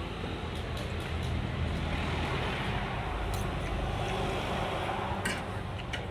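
Road traffic running steadily with a low rumble, swelling for a few seconds in the middle. A few light clinks of a fork and spoon on a plate sound over it.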